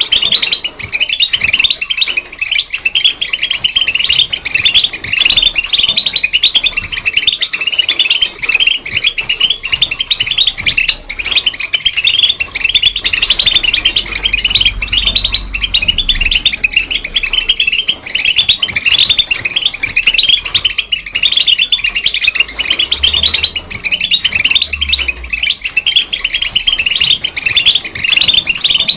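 European goldfinch singing: a continuous, fast twittering run of chirps and trills.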